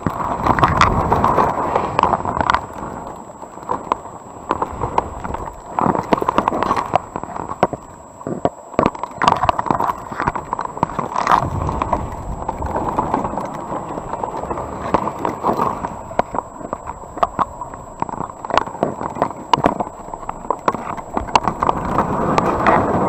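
Underwater sound picked up through a Waspcam action camera's waterproof housing on a submerged crab trap: a muffled rushing noise with frequent irregular clicks and knocks, and a faint steady high tone.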